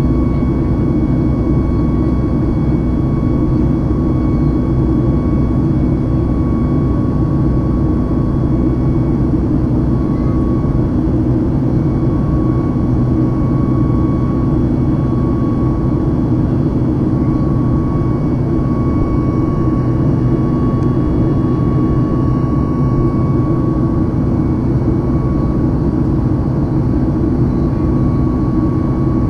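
Steady cabin drone of a Boeing 737 MAX's CFM LEAP-1B engines during the climb after takeoff, heard from a window seat beside the engine, with a faint whine above the low rumble.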